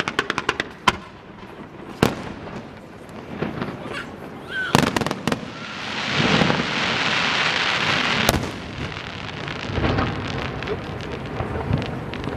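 Fireworks display: a fast run of sharp cracks at the start, then single bangs and a cluster of reports about five seconds in. Near the middle a steady rushing hiss builds for about two seconds and ends in a loud sharp bang, followed by scattered smaller cracks.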